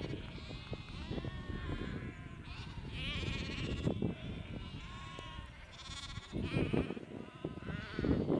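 A flock of sheep bleating, with several separate calls from different animals over a low background noise.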